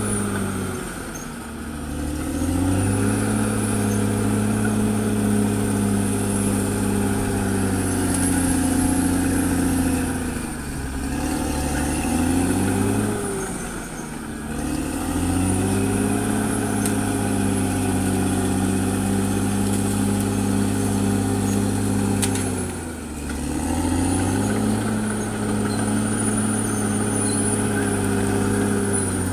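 CAT D6R XL bulldozer's diesel engine working under load, its revs dropping off several times and climbing back up. A faint high whine rises and falls with the engine.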